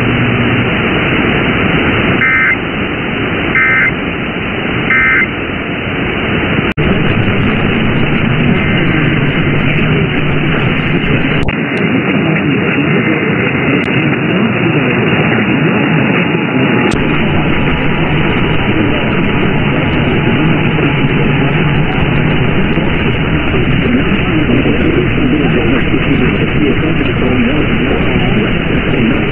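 Three short Emergency Alert System end-of-message data bursts, about a second apart, followed by steady hiss of radio static from the receiver.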